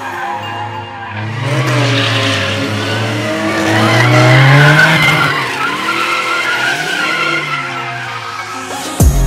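A car driven hard through a corner: its engine note rises and falls as the throttle is worked, with tyres squealing as it slides. Backing music with a drum beat cuts back in near the end.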